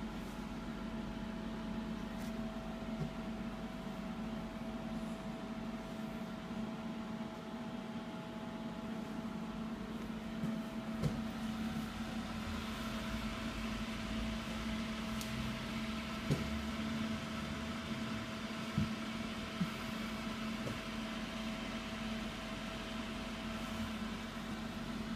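Indotherm 500 shortwave diathermy unit switched on and running: a steady electrical hum with a higher thin whine over it, and the whir of its cooling fan. A few light clicks now and then.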